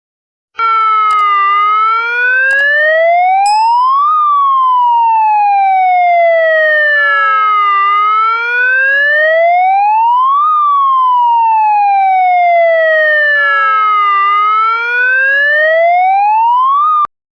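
Emergency-vehicle siren in a slow wail: the pitch climbs for about three seconds, falls for about three and a half, and repeats. It cuts off suddenly near the end. A few sharp clicks sound in the first few seconds.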